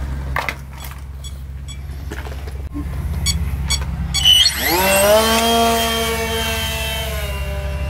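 Electric motor and propeller of a foam RC triplane: a few light ticks, then a quickly rising whine about halfway through as the throttle opens for take-off. The whine holds steady and eases slightly near the end.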